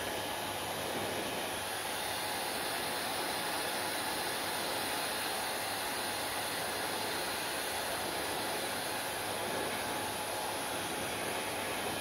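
Handheld hair dryer running steadily: a constant rush of air that holds the same level and pitch throughout.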